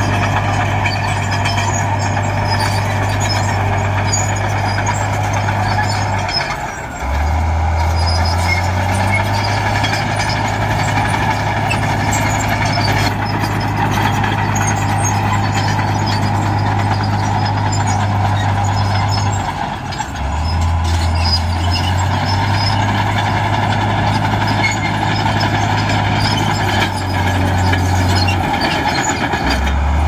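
Komatsu D63E bulldozer's diesel engine running steadily under work. Its pitch drops briefly three times, about a quarter of the way in, around two-thirds through and near the end, and each time it climbs back up.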